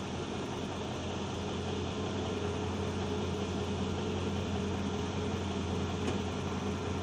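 A heavy vehicle's engine running steadily at constant speed: an even low drone with no change in pitch.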